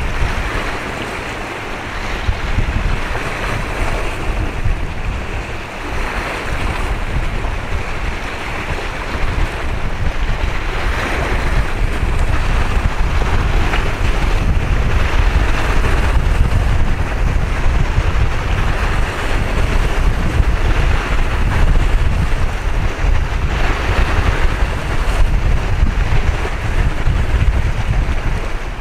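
Wind buffeting the microphone outdoors by the water: a heavy, uneven low rumble with a hiss that swells in gusts. No engine note or other distinct sound stands out.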